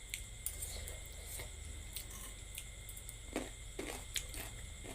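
Faint chewing and wet mouth clicks of someone eating spicy noodles, with scattered soft ticks.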